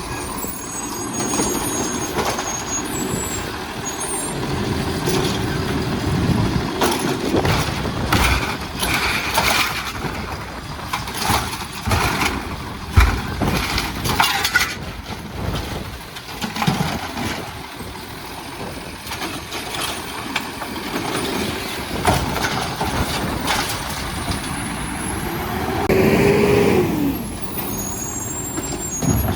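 Automated side-loader garbage truck (Heil Rapid Rail) at work, its diesel engine running. A run of clanks and bangs from the arm and bin comes through the middle, and a rising then falling pitch near the end.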